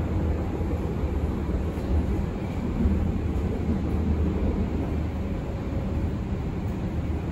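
Berlin U-Bahn F90 train with three-phase AC drive, heard from inside the car as it runs along the track: a steady, continuous low rumble of wheels and running gear.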